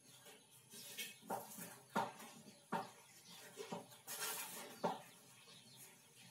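Chalk writing on a blackboard: a string of sharp taps with brief scratchy strokes as letters are chalked on.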